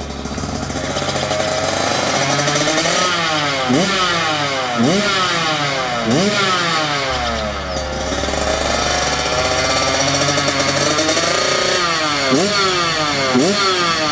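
Yamaha YZ125 two-stroke dirt bike engine with a Pro Circuit exhaust, revving hard: its pitch climbs again and again and drops sharply between climbs.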